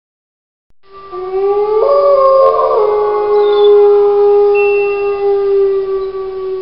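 Wolves howling in chorus: several long overlapping howls at different pitches, beginning about a second in, with one lower howl held steadily.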